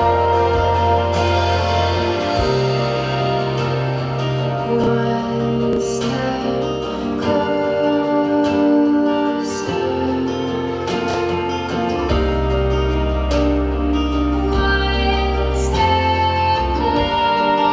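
Slow waltz music playing over the DJ's speakers, a song with a sung melody over long held bass notes.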